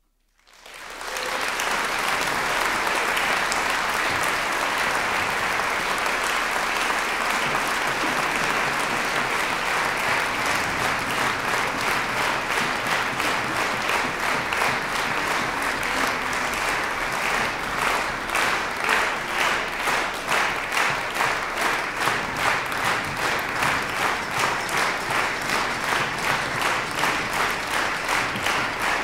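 A large concert audience applauding at the end of a song. The applause swells up from silence in the first second. From about eighteen seconds in it settles into rhythmic clapping in unison, about two claps a second.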